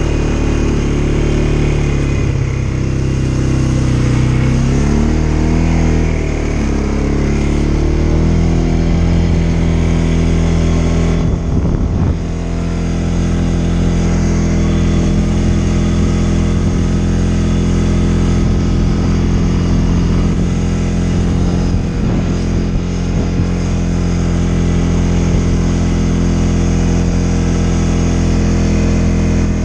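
CFMoto CForce 550 ATV engine running while riding a dirt track, its pitch rising and falling for the first several seconds and then holding steady. A few knocks and a brief dip in the engine sound come a little before halfway.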